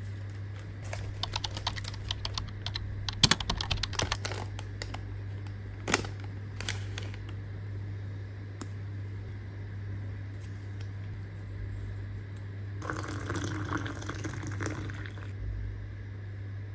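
Light clicks and crinkles of tea sachets and a pyramid tea bag being handled, then, about 13 seconds in, water poured into a ceramic mug for a couple of seconds. A steady low hum runs underneath.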